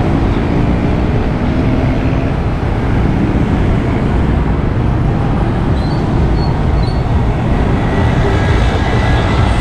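Steady road traffic noise from passing motor vehicles, with a heavy low rumble and, in the first couple of seconds, the hum of a nearby engine.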